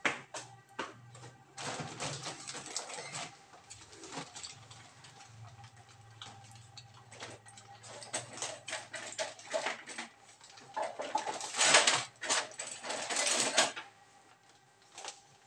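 Cooking oil heating in a nonstick frying pan, crackling and spitting with scattered sharp pops, with louder bursts of sizzling about two seconds in and again from about eleven to fourteen seconds.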